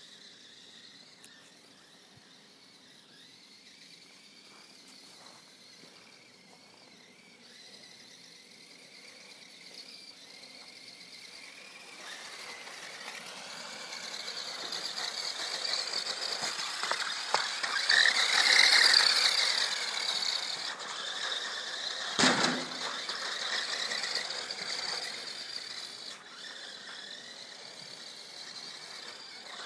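Small radio-controlled car's motor and drivetrain whining at a high pitch as it drives through snow, growing from faint to loud as it comes close about two-thirds of the way through, then fading as it moves off. A single sharp knock follows a few seconds after the loudest part.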